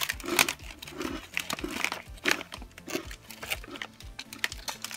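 Plastic snack packaging crinkling and crackling as it is handled: a thin foil-plastic wrapper and the clear plastic tray of rice crackers inside it, in irregular crackles.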